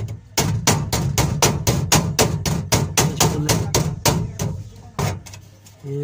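Hammer blows on the metal strips of a washing machine's frame, a fast even run of about five strikes a second, straightening a bent strip; the blows pause briefly near the end.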